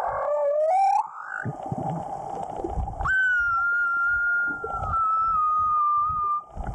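Humpback whale song heard underwater: rising glides, then a long, high, held call that steps slightly down in pitch, over low underwater rumbles.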